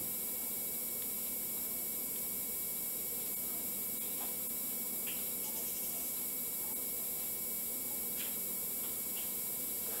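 Plugged-in PowEver ACK-E8 AC power adapter, with no camera drawing power, giving off a steady electrical hum and whine made of several fixed tones over a faint hiss. This is the noise these adapters are said to make whenever they are plugged in.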